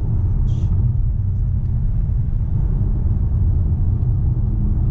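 Steady low road-and-engine rumble inside the cabin of a car driving at highway speed, with a brief soft hiss about half a second in.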